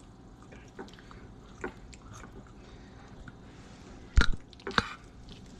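Metal fork cutting through a soft, saucy lasagna roll on a ceramic plate, with faint soft clicks and two sharp knocks of the fork against the plate a little after four seconds in.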